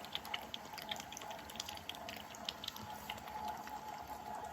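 Puppy eating at its bowl: small, irregular wet clicks and smacks of its mouth, faint, over a steady low background hum.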